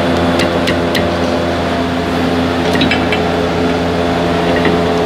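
Steady machine hum at an even level, with a few light metallic clicks in the first second and again about three seconds in as a new brake caliper is handled and fitted over its pads.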